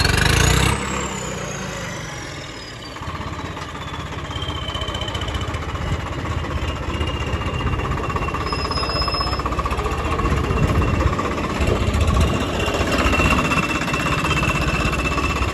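Swaraj 855 FE tractor's three-cylinder diesel engine running with a heavy knocking beat, revved briefly at the start, easing off about a second in, then picking up again from about three seconds in. A thin high whine falls slowly in pitch over the first several seconds and then holds steady.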